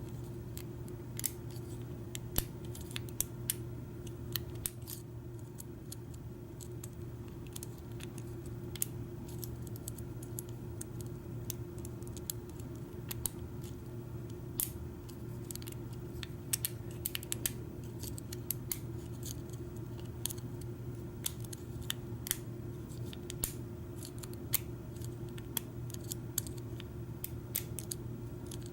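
A lock pick and tension wrench working the pin stack of a Kwikset deadbolt: irregular small metallic clicks and ticks as pins are lifted and set, spread through the whole stretch over a steady low hum.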